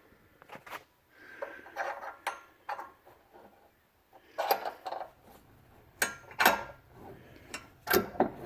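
Irregular metallic clanks, knocks and short scrapes of hand tools and hardware being worked while tightening down a bench vise mount, with the loudest sharp clanks in the second half.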